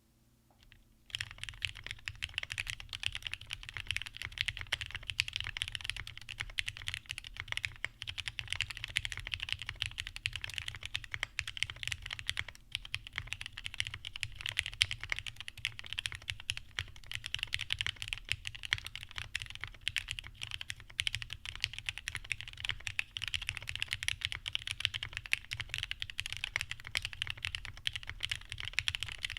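Continuous fast typing on a PCB-mounted custom mechanical keyboard, the daji Seis Cero with lubed Cherry Top JWK SoHo switches and thick ABS GMK keycaps, starting about a second in: a dense, steady run of keystroke clacks.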